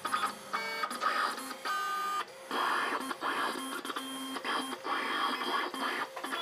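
Vinyl cutting plotter cutting sticker vinyl: the blade carriage moves back and forth in short runs, its motors whirring with whines that jump from pitch to pitch as the direction and speed change.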